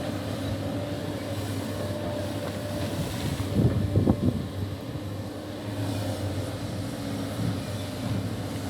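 Sany excavator's diesel engine running steadily, with a louder, rougher stretch for about a second near the middle.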